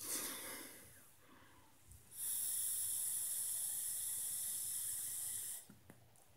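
A breath of vapour exhaled at the start, fading within a second. Then a long draw of about three and a half seconds on a button-fired vape pen: a steady high hiss of air pulled through the device while its coil fires, stopping suddenly.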